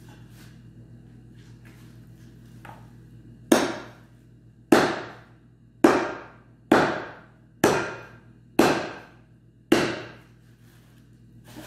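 Large cleaver-like knife chopping into goat meat and bone on a steel tray: seven hard strikes about a second apart, each ringing briefly. The knife is blunt, so the pieces are hacked rather than cut.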